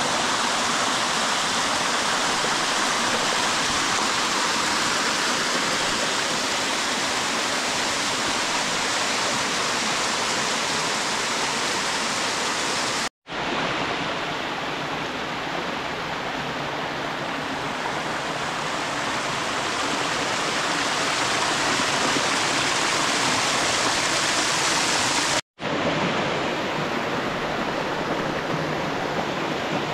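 Small mountain stream cascading over rock steps: steady rushing of falling water. The sound cuts out for an instant twice, where the shots change.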